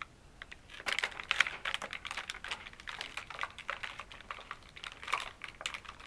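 A quick run of light, irregular clicks and taps that goes on for several seconds.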